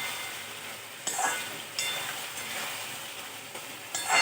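Chicken sizzling in a pan of Thai chilli sauce as it is stirred, with a steady hiss and a few sharp clinks of the utensil against the pan, the loudest one ringing briefly near the end.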